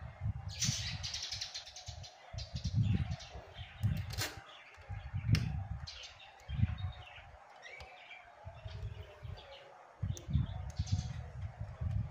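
Small birds chirping on and off, with intermittent low rumbling and a few sharp clicks, the loudest about four and five seconds in, as small metal parts are handled at a scooter's handlebar brake lever.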